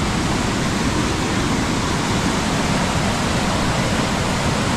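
Waterfall running high with rain-swollen water: a steady, loud rush of falling water.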